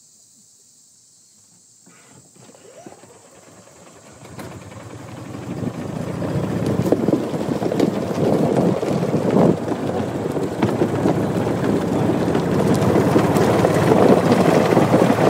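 Quiet for the first few seconds, then a rough rustling and rumbling noise with scattered clicks builds up about four seconds in and grows loud. It is the noise of a phone's microphone being carried on foot through woods over leaf litter: handling and footsteps, possibly with wind on the microphone.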